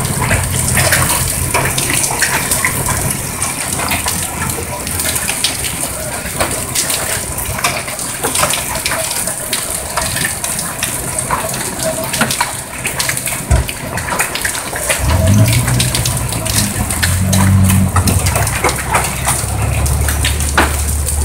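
Heavy rain and hail pouring down, with many sharp clicks of hailstones striking hard surfaces. A low hum joins in during the last several seconds.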